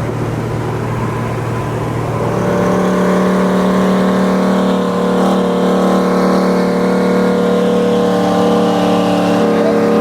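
Car engine running loud and steady, getting louder about two seconds in and then holding a fairly even pitch.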